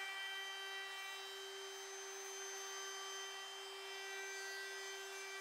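DeWalt brushless compact router with a roundover bit running at a steady high speed, an even whine, as it rounds over the edge of a pine board.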